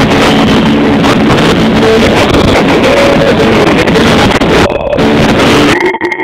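Loud music with a heavy rumbling noise over it, distorted through a phone microphone; the sound dips briefly near the end.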